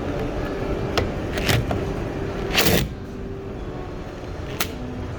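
Screws being set into a freezer door handle: a few sharp clicks and knocks, with a louder short scraping burst about two and a half seconds in, over a steady mechanical hum.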